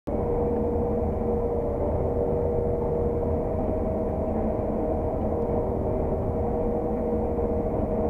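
Claas Lexion 600 TT combine harvester running steadily while combining oilseed rape, heard from inside the cab: a constant low drone with a steady whine over it.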